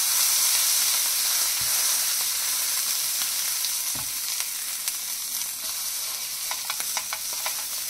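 Butter sizzling on a tawa as halved pav buns are pressed and turned in it, a steady hiss that slowly gets quieter, with a few faint crackles near the end.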